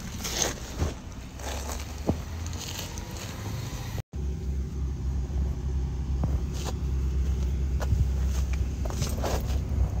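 Car engine running with a steady low rumble, with scattered clicks and knocks over it. The sound drops out for an instant about four seconds in, and the rumble comes back louder.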